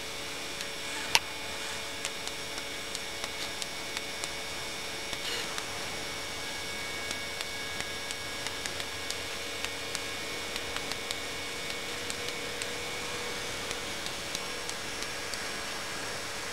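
Airbrush robot at work: a steady whine and hiss from its motors and spraying airbrush, with frequent small mechanical clicks and one sharper click about a second in.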